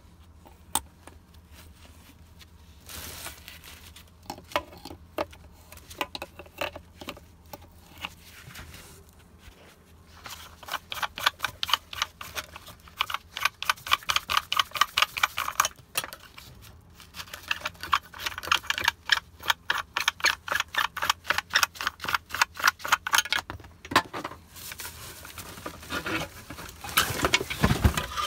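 Channel-lock pliers working a brass faucet loose from a plastic sink: a rapid, even run of clicks, several a second, in two long spells, with a few scattered knocks before them.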